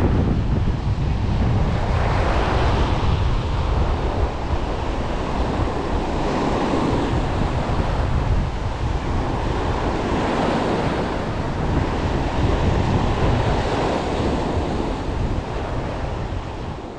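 Sea surf washing onto a beach, swelling about every four seconds, with wind buffeting the microphone as a steady low rumble. The sound fades out near the end.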